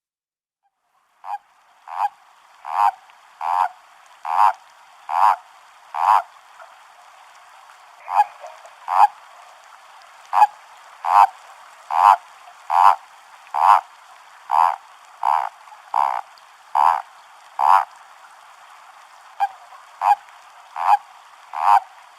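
A toad calling: short croaks repeated a little faster than one a second, in runs broken by brief pauses, starting about a second in.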